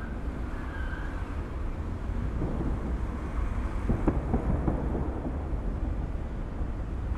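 Fireworks display: aerial shells bursting at a distance, their booms running together into a rolling rumble, with a few sharper bangs about halfway through.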